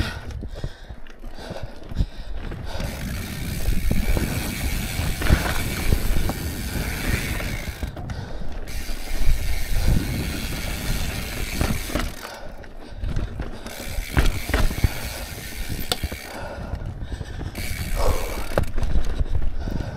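A mountain bike rolling down rock and dirt trail, with the rear hub's freehub ratcheting as the rider coasts, under the rumble of the tyres and irregular knocks and rattles of the bike over the rock.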